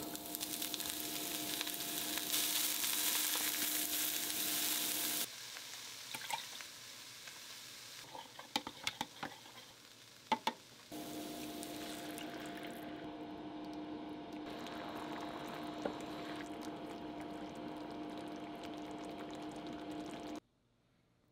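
Food sizzling in a frying pan over a steady hum. In a quieter middle stretch a silicone spatula clicks and knocks against a plastic measuring jug as the mentsuyu and potato-starch mixture is stirred. After that, onion and carrot sizzle and bubble in the sauce in the pan over the same hum, until the sound cuts off just before the end.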